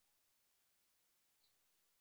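Near silence: the sound track is all but empty.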